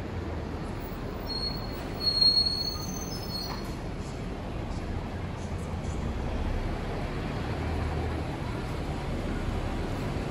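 Low, steady rumble of a city bus engine and street traffic, with a brief high-pitched squeal about two seconds in.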